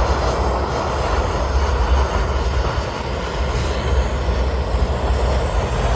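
Propane roofing torch burning steadily: a continuous rushing flame noise as it heats torch-down roofing patches so they bond.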